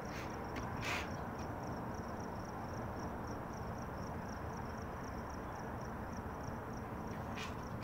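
A cricket chirping in a fast, even rhythm, about four to five chirps a second, over a steady low background noise. A sharp click sounds about a second in.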